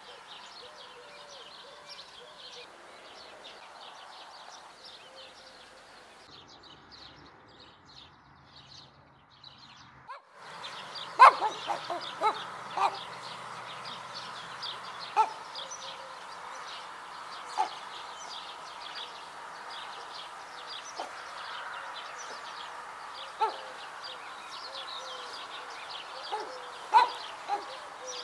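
Small birds chirping and singing. From about ten seconds in, a dog gives a run of short, sharp barks, then single barks every few seconds.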